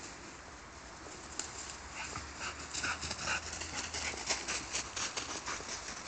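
Footsteps crunching in snow, quick and irregular, starting about two seconds in.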